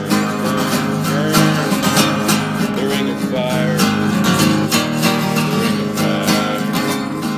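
Steel-string acoustic guitar strummed in a steady rhythm.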